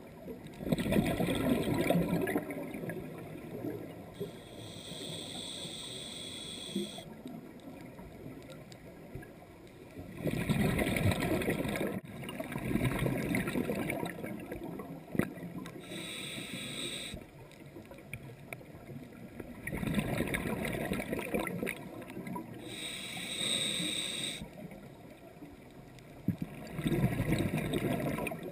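Scuba diver breathing through a regulator, heard underwater through the camera housing. A hissing inhale is followed a few seconds later by a loud burble of exhaled bubbles, and the cycle repeats about every eight to nine seconds.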